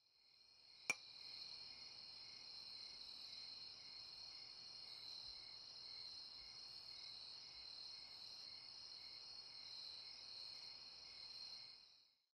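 Faint night-time crickets chirring steadily, with a gentle pulse of about two a second; it fades in at the start and fades out near the end. A single sharp click sounds about a second in.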